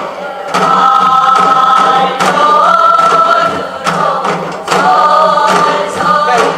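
Singing over backing music, the voice holding long notes with a slight waver, with drum hits now and then.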